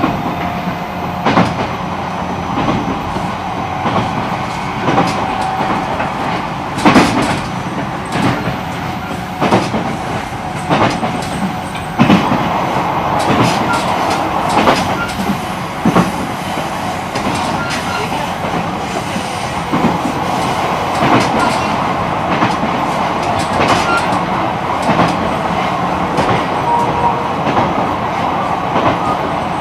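E129 series electric train running at speed, heard from on board: a steady rolling rumble of wheels on rail, with irregular sharp clacks as the wheels cross rail joints.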